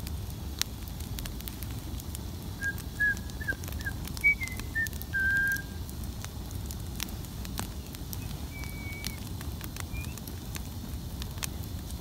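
Bonfire of scrap wood and a wooden ladder burning: a steady low rush of flames with scattered sharp crackles and pops. Short high whistling notes come in a string a few seconds in and twice more later.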